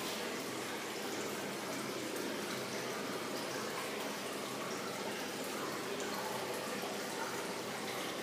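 Water running steadily down the glass panel of a steel-framed water-wall fountain, a continuous, even sound of falling and splashing water.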